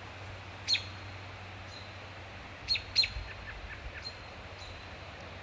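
Birds calling at dusk: short sharp chirps, one about a second in and two close together about three seconds in, with fainter notes between, over a steady background hiss.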